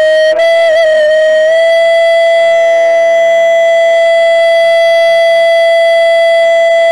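A wind instrument holding one long, steady note, its pitch wavering briefly about a second in.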